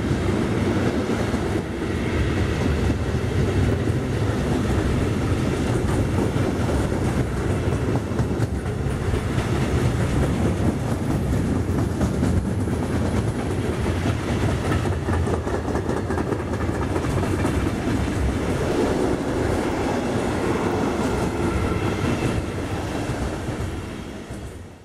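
Container freight train wagons passing close by: a loud steady rumble of steel wheels on the rails with a clickety-clack over the track, easing a little near the end.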